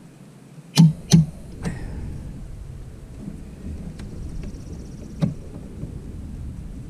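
Sharp metal clicks of hand tools working on a SeaStar hydraulic steering cylinder: two loud ones close together about a second in, a fainter one just after and another around five seconds, over a steady rumble of wind on the microphone.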